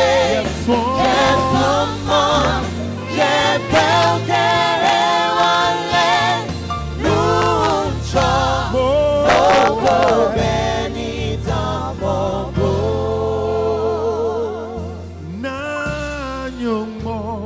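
Live gospel band with singing: a lead vocal and backing singers holding long notes with vibrato over keyboards, guitars, bass and drums.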